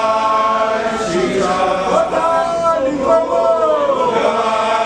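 A group of voices chanting together in unison, in long held notes that slide down in pitch at the end of each phrase.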